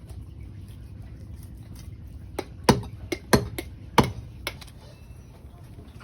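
Kitchen utensils knocking: a quick run of about seven sharp knocks and clicks over two seconds, over a low steady hum.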